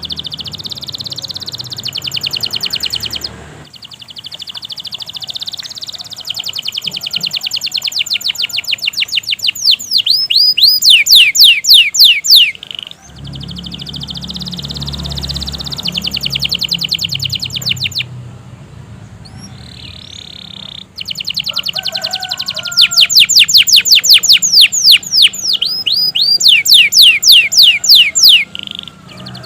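Domestic canary singing a long, continuous song: stretches of rapid, high trills, twice building into a loud run of quick downward-sweeping notes, with brief pauses between phrases.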